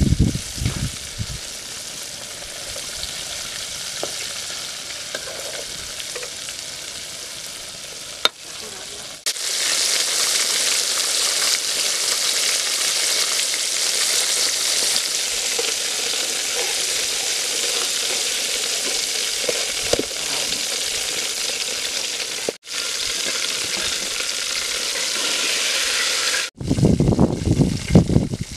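Chicken drumsticks in a cornflake crust deep-frying in hot oil, a steady sizzle of bubbling oil that grows louder about nine seconds in. Near the end, a few louder, uneven sounds break through the sizzle.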